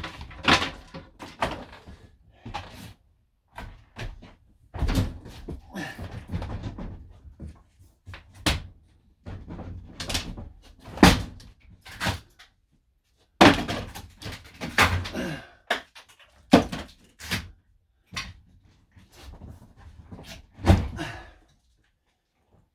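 Irregular knocks, bangs and thuds, with rattling and scraping in between, as wooden interior fittings of a camper van are worked loose and pulled apart by hand. The loudest bangs fall about 11 s, 13.5 s and 21 s in.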